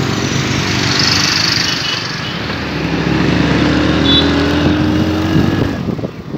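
Motorcycle engine running as it carries the rider and passenger, with wind noise over the microphone. From about two seconds in the engine note climbs steadily as the bike accelerates. Near the end the engine note drops away and gusty wind buffeting takes over.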